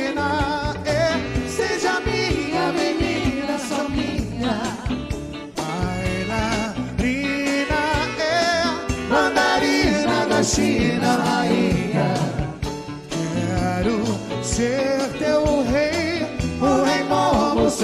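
A big band with a horn section and conga percussion plays live, with singers' voices over the band.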